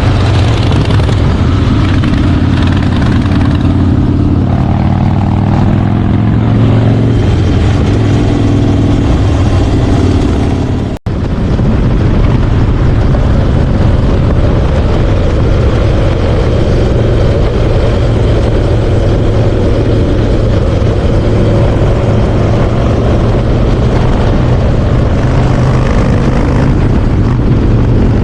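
Harley-Davidson Softail Slim V-twin running loud, its pitch shifting up and down for the first third. After a sudden brief dropout about eleven seconds in, it runs on more steadily with more rushing noise.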